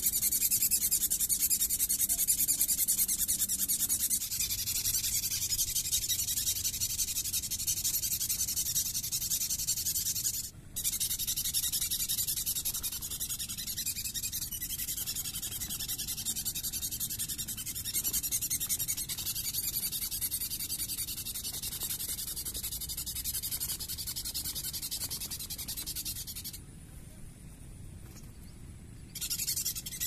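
Fast, continuous high squeaking from a drinking glass rubbed with a piece of foam (gabus), imitating the distress squeaks of a trapped bird to lure sunbirds. It stops for a moment about ten seconds in, and again for a couple of seconds near the end.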